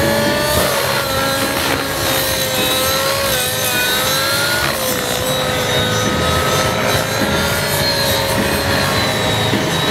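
Radio-controlled helicopter flying aerobatics: a steady whine from its engine and rotor, the pitch wavering up and down as it manoeuvres.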